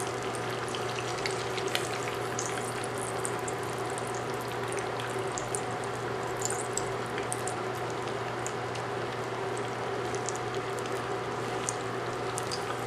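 Meat turnovers frying in a skillet of hot oil: a steady sizzle with scattered small crackles and pops. A faint steady hum runs underneath.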